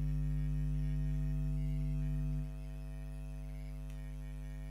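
Steady electrical hum with a buzz of evenly spaced overtones, dropping in level about two and a half seconds in.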